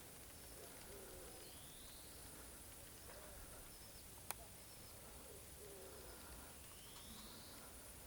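Faint pigeons cooing, a soft low call about a second in and again near six seconds, with two brief rising higher calls and one sharp click about four seconds in.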